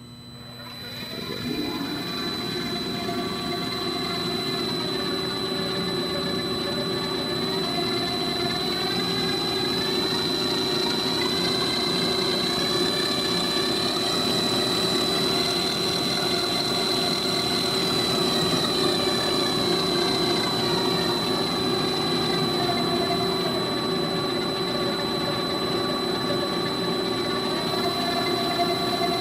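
Moore G18 CNC jig grinder running: a motor in the grinding head starts about a second in and spins up to a steady hum with a constant high whine. Partway through, the pitch of its upper tones rises, holds, then falls back as the speed changes.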